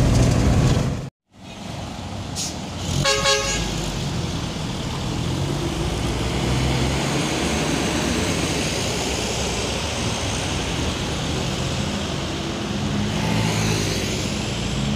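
Diesel truck engine and road noise that drops out abruptly about a second in. A short horn toot follows about three seconds in, then a Mitsubishi Fuso 220PS diesel truck's engine runs steadily as it rolls by, with traffic noise.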